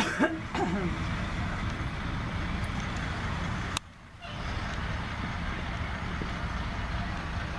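Fire truck's engine running with a steady low rumble as the truck rolls slowly past. Two sharp clicks come at the very start, and the sound drops out briefly a little under four seconds in.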